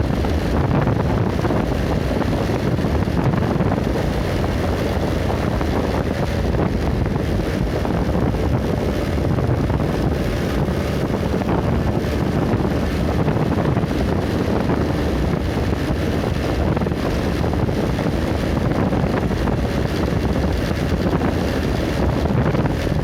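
Wind buffeting the microphone over the steady running and road noise of a moving vehicle, an even rumble with no breaks.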